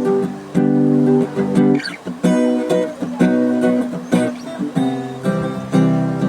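Guitar strumming a series of ringing chords, struck again every half second to a second.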